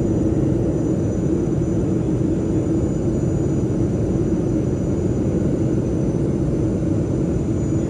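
Steady cabin noise of a Boeing 737-200 in flight: the drone of its Pratt & Whitney JT8D turbofans and rushing air heard from a window seat beside the engine, with a steady low hum and a faint high whine over it.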